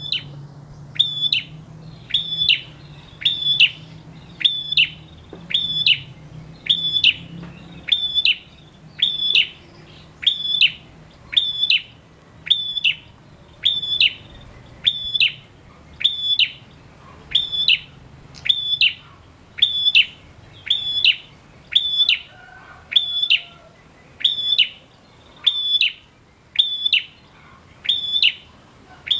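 Male prenjak (ashy tailorbird) calling in full song: one sharp, high note repeated at a steady, even pace, about three every two seconds.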